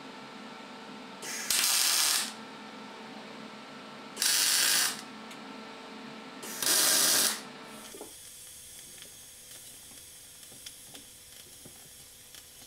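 Three loud bursts of hiss, each about a second long, over a steady humming that stops about eight seconds in, followed by a few faint ticks.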